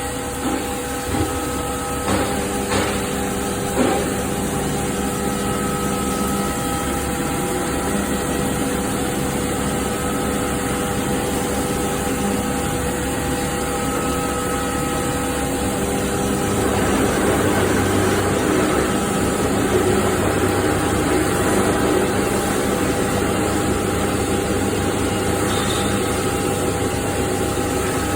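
CNC machining center milling SS400 steel: a steady spindle hum with a grainy cutting noise, a few sharp ticks in the first four seconds, and the cutting getting louder a little past halfway.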